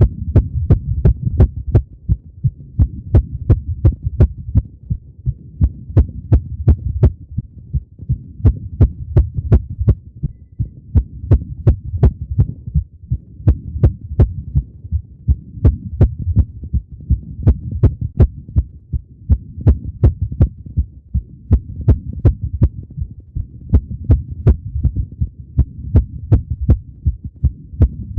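A woman's rapid heartbeat heard through a stethoscope, about 180 beats per minute: fast, steady low thumps, with sharp clicks standing out among the beats as the loudest peaks.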